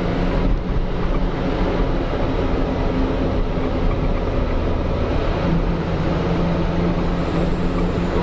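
A truck engine running steadily under way, a constant low drone over dense road noise.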